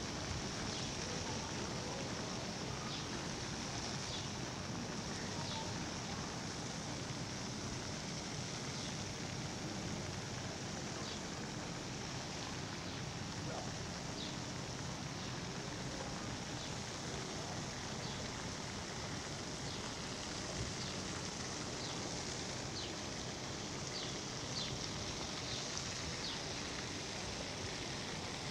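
Steady outdoor ambience: an even noise bed with a constant high hiss, broken by a scattering of brief, faint high chirps that come more often near the end.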